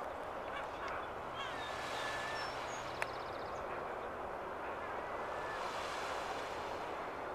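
Steady open-air wash of wind and water, with a faint low hum during the first few seconds, a few short bird calls, and a single sharp click about three seconds in.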